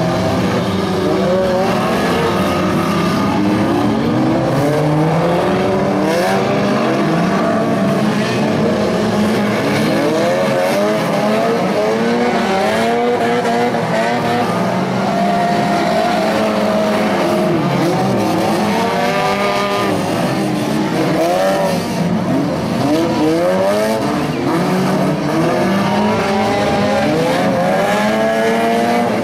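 Several stock-car engines racing together, each revving up and down so that many pitches overlap and rise and fall over one another.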